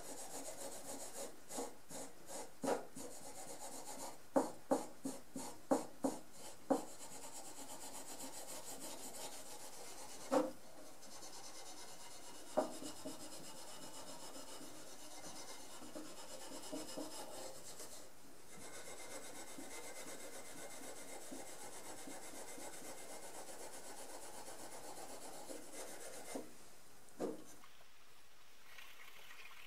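Fine #0000 steel wool rubbed over the old wooden handle of a hand saw, scrubbing off surface grime. It starts as a run of quick, sharp strokes for about the first seven seconds, then settles into steady scrubbing, with a few louder knocks along the way.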